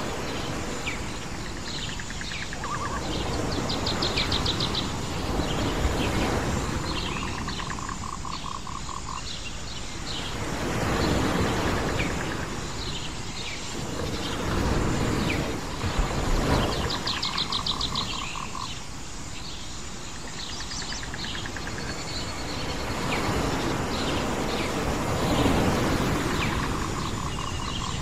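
Island nature ambience: surf washing in and out in slow swells, with birds chirping over it and a rapid pulsing trill that comes back several times.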